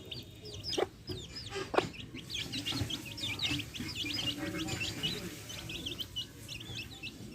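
Backyard chicks peeping, many short high calls overlapping without pause, over the low clucking of hens. Two sharp clicks stand out about one and two seconds in.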